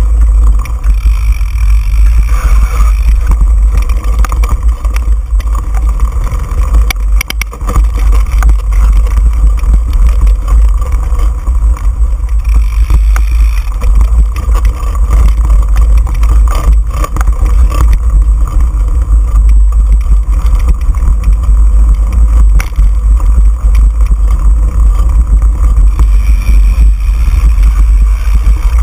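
Heavy wind rumble on the microphone of a camera riding on a mountain bike, with the bike's tyres rolling over a dirt trail and a few sharp knocks and rattles from the bike over bumps.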